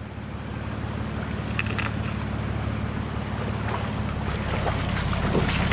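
Nissan Patrol GU ute's engine running at low revs as it crawls forward towing a camper, growing slowly louder, with a few light crackles.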